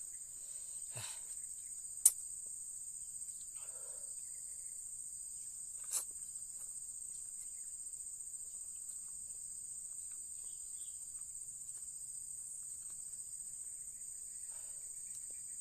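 Steady, high-pitched insect chirring throughout, with a sharp click about two seconds in and a softer one about six seconds in, as the fork and spoon work the noodles, and faint eating sounds.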